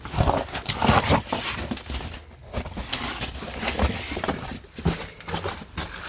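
A person scrambling through a tight gap between boulders: uneven scuffs, knocks and scrapes of shoes and hands on stone, with rustling of loose rock and dry leaves.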